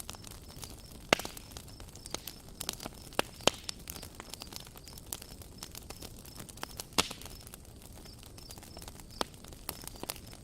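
Wood campfire crackling, with irregular sharp pops and snaps over a low hiss. The loudest pops come about a second in, at three and a half seconds and at seven seconds.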